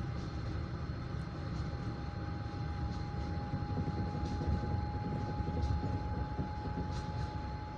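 Passenger train carriage running on the rails: a steady low rumble of the wheels, with a thin high tone held throughout that slowly rises a little in pitch, and a few faint ticks.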